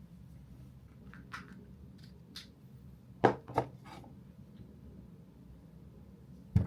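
Objects being handled: a few light clicks, then two loud knocks close together about three seconds in, a softer one just after, and another loud knock near the end, over a low steady hum.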